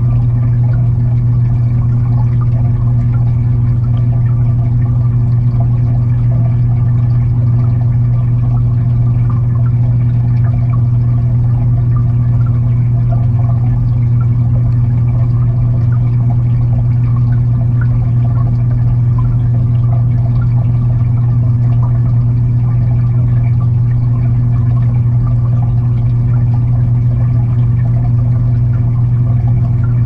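Aquarium water and filter heard from underwater inside the tank: a steady low hum with constant churning, crackling water noise over it, unchanging throughout.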